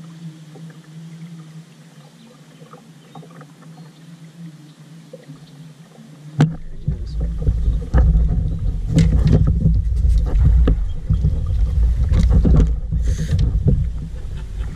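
A kayak angler grabbing his rod and reeling in a hooked fish: low background for about six seconds, then a sharp knock and loud rumbling handling noise with scattered knocks and clatters against the kayak and the chest-mounted camera.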